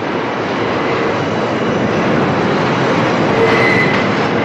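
New York City subway train running through a tunnel toward the listener: a loud, steady rumble and rattle of wheels on track, with a faint thin whine about three and a half seconds in.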